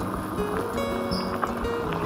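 Background instrumental music, with a faint click about a second and a half in.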